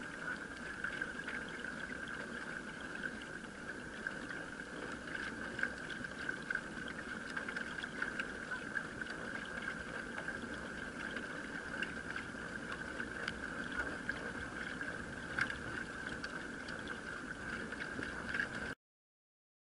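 Home-built pedal boat under way: its pedal-driven chain and sprocket drive running with a steady whir, over water moving along the hulls, with scattered small ticks. The sound cuts off suddenly near the end.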